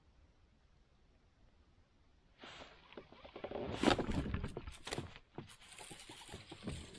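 Faint hiss, then from about two and a half seconds in, splashing and clattering as a hooked bass is fought beside a kayak, loudest about four seconds in, with knocks of the rod and reel against the hull.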